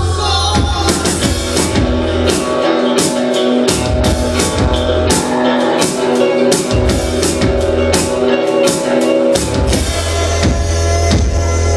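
A band playing live: a drum kit beating a steady rhythm under guitar and sustained chords, with the deep bass dropping out twice for a few seconds.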